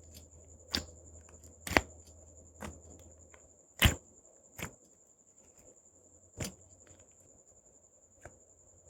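Glossy slime being poked and pressed, with air bubbles in it popping as about seven sharp separate pops, the two loudest about two and four seconds in.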